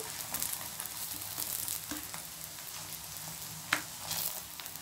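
Bun parottas sizzling steadily in oil on an iron dosa tawa. A steel spatula clicks against the pan a few times as they are turned, most sharply about three-quarters of the way through.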